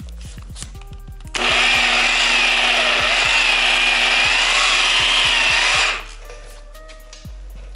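Inexpensive dual-action polisher with a microfiber cutting pad running on a car's painted door panel, its motor whine wavering up and down in pitch. It starts about a second and a half in and cuts off about six seconds in.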